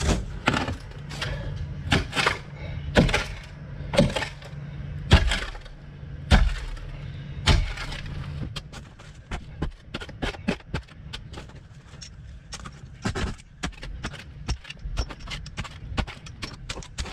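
A steel shovel blade being driven into sod and packed dirt, one hard chop about every second for the first eight seconds, then quicker, lighter scrapes and clicks. A low hum runs under the first half and stops about eight seconds in.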